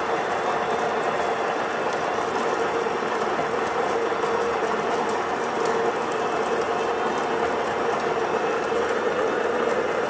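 Built-in coffee grinder of a Sur la Table dual-boiler espresso machine grinding beans into a dosing cup, a steady grinding whir with a constant hum in it.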